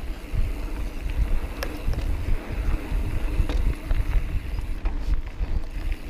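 Mountain bike riding fast down a dirt trail: a heavy, gusting wind rumble on the microphone over tyre and frame noise, with a few sharp clicks and knocks as the bike rattles over rocks.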